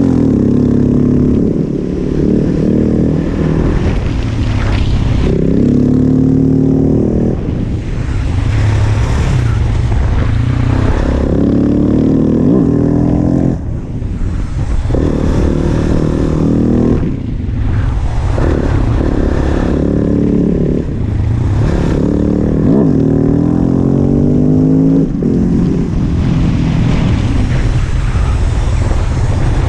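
KTM 690 SMC-R's single-cylinder four-stroke engine under way, heard from a helmet-mounted camera. The revs climb and drop again and again as the bike accelerates through the gears and rolls off for corners.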